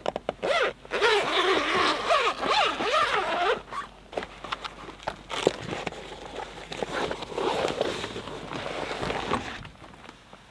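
Zipper on a van's roof-mounted awning bag being pulled open in two long pulls, a wavering rasp with scattered clicks and fabric handling between the pulls.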